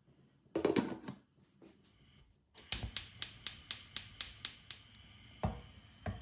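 Gas hob's electric igniter clicking about four times a second, nine clicks in all, until the burner lights, after which a faint steady hiss is left. Before the clicks there is a brief rush of noise, and near the end a single knock as the glass lid goes onto the pot.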